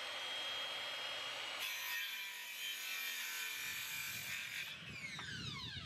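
Makita circular saw running at speed with a steady whine, cutting through a 2x1 treated-timber batten for about three seconds from a second and a half in. Near the end the motor winds down with a falling whine.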